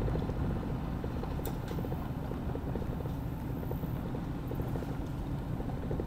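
Truck driving along a dirt road: a steady low rumble of engine and tyres with faint, rapid ticking over it.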